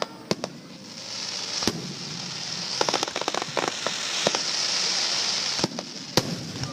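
Aerial fireworks: scattered sharp bangs, with a quick cluster of them about three seconds in, over a long high crackling hiss that builds from about a second in and stops with a bang near the end.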